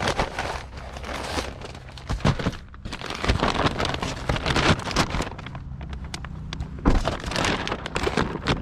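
Brown paper bag rustling and crinkling as it is handled and carried, with scattered knocks and clothing and handling noise, over a steady low hum.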